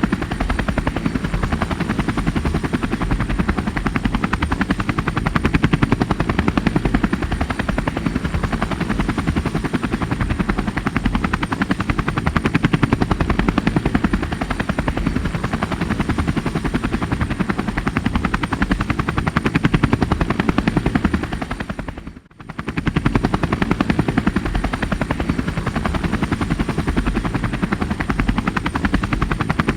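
Helicopter sound effect laid in during editing: a fast, even rotor chop with a faint steady high whine over it. It drops out for a moment about three-quarters of the way through, at a splice in the added track.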